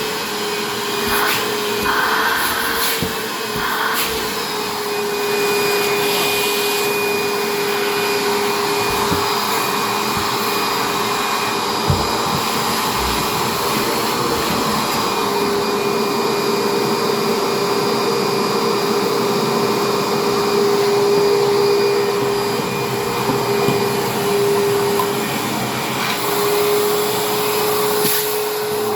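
Vacuum cleaner running continuously, its motor hum wavering slightly in pitch and strength as it works over the floor, with a single knock about twelve seconds in.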